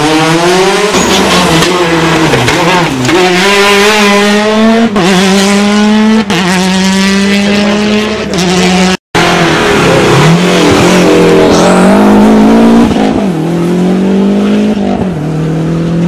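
Rally cars' engines revving hard as they pass one after another, the pitch climbing and then dropping sharply again and again through gear changes. The sound drops out briefly about nine seconds in.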